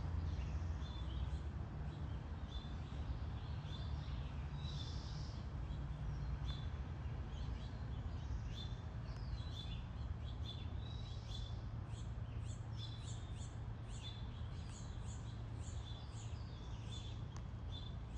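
Wild birds chirping outdoors: a short high call repeats about once a second, with a run of quick chirps joining in the second half, over a steady low rumble of background noise.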